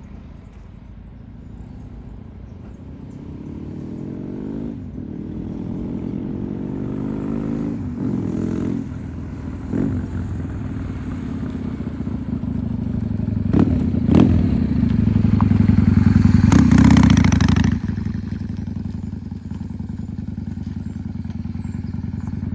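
Honda Shadow 600's V-twin engine and exhaust, growing steadily louder with several brief dips in revs. It is loudest a little past the middle, then drops off sharply and runs on steadily at a lower level.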